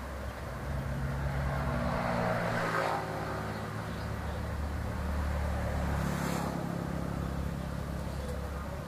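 Motor vehicle engines passing, swelling about two seconds in and again around six seconds, over a steady low hum.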